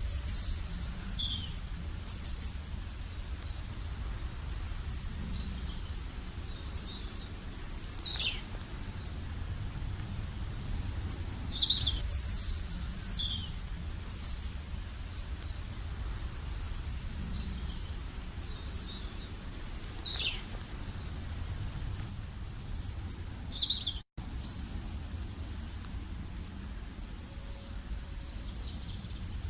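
Small birds chirping: short, high chirps and quick falling whistles in scattered clusters, busiest about a second in, around eleven to thirteen seconds in, and near the end, over a steady low rumble. The sound cuts out for an instant about two-thirds of the way through.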